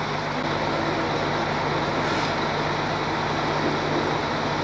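Heavy engine running steadily with a constant low hum, no change in speed.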